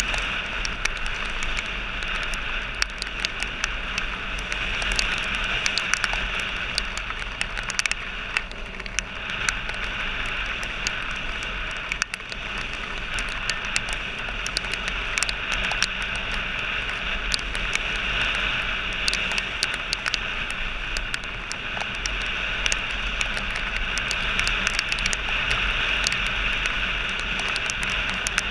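Dirt bike riding along a rough dirt track, its engine running steadily under a constant rush of wind on the rider's camera microphone, with many small clicks and crackles throughout.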